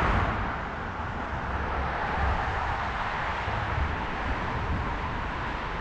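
Wind rumbling unevenly on the microphone while cycling, over a steady hiss of road and traffic noise.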